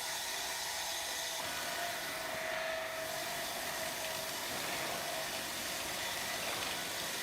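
Steady running noise of sawmill machinery on a small-diameter log processing line: an even mechanical hum with a faint held tone in the middle.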